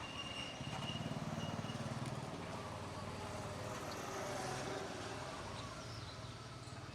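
A low, steady engine-like hum over outdoor background noise, strongest for a second or two near the start.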